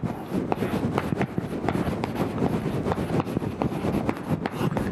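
Chalk writing on a blackboard: a quick, irregular run of taps and scratches as a word is written out by hand.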